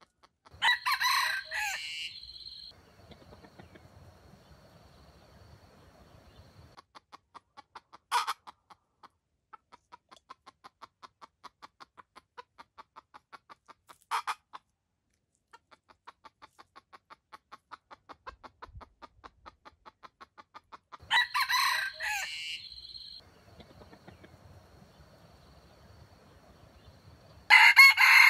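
Red junglefowl (wild chicken) rooster crowing three times, each crow short and abrupt, lasting about two seconds. Between the crows come two brief sharp calls and a faint, steady, quick ticking.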